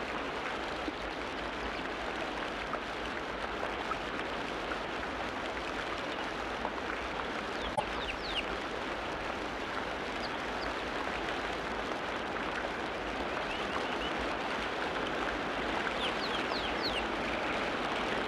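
Steady rushing noise of water, with a few faint short bird chirps about eight seconds in and again near the end.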